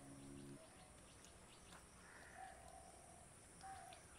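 Faint outdoor background of birds calling and insects chirping in a regular ticking pattern. Soft background music ends about half a second in.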